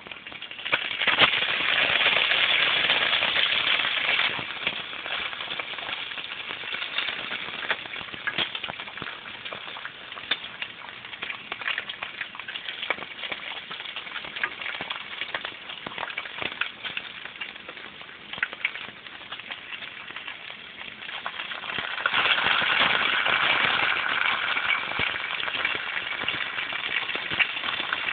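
Bacon sizzling and crackling in a hot frying pan, with many small fat pops. It surges louder about a second in as a raw strip is laid into the fat, eases off, then swells again about 22 seconds in.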